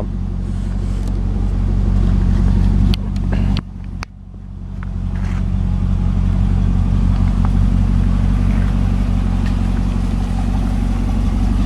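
2011 Cadillac CTS-V coupe's supercharged 6.2-litre V8 idling steadily. The sound drops away briefly about three to four seconds in, then comes back.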